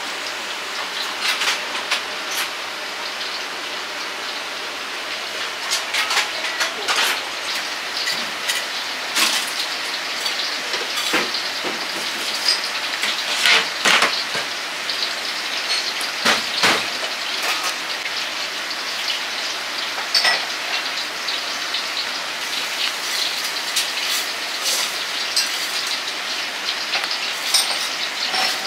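Stir-frying in a wok: steady sizzling with frequent sharp knocks of the ladle against the wok.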